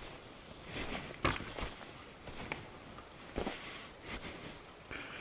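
Footsteps on loose rocks and gravel: a handful of irregular steps, each a short scrape or clatter of stones underfoot.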